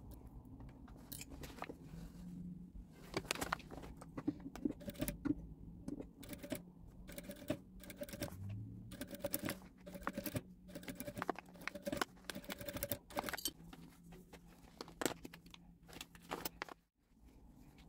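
Sewing machine stitching in short runs, heard as clusters of rapid clicking and ticking over a steady low motor hum, with fabric being shifted and handled between runs.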